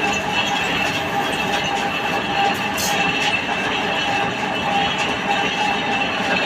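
Lathe running while machining a steel trolley axle: a steady mechanical din with a steady high-pitched whine, and a brief hiss about three seconds in.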